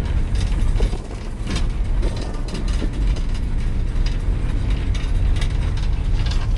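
Bus running with a heavy low engine rumble and steady rattling and clicking of loose fittings.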